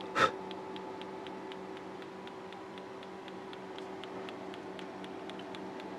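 A short click, then faint rapid ticking, about four ticks a second, over a steady electrical hum. It comes from the powered-up faulty LCD monitor, which keeps failing to start.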